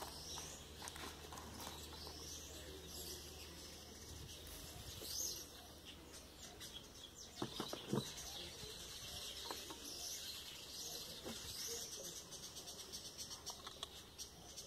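Birds chirping in the background through a faint outdoor hush, with a couple of sharp knocks of a metal spanner being handled about seven and a half to eight seconds in.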